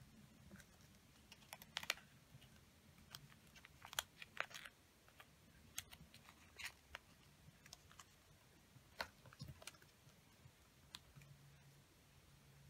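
A small sheet of paper being folded and creased by hand: irregular crisp crinkles and ticks, most of them in the first half.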